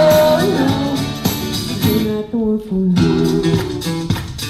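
Backing music with guitar playing between sung lines. A held sung note ends about half a second in.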